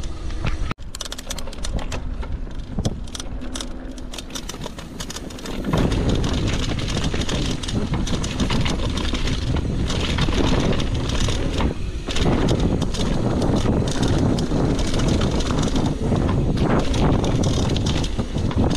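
Mountain bike rolling down a dirt trail: tyre rumble and frame and chain rattle over roots and rocks, mixed with wind noise on the camera's microphone. It is quieter with scattered clicks and knocks at first, then from about six seconds in a louder, steady rumble as the bike picks up speed.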